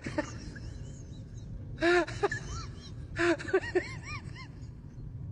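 A person laughing in short bursts of rising-and-falling 'ha-ha' syllables, one burst about two seconds in and another a little after three seconds, with quieter breathy stretches between.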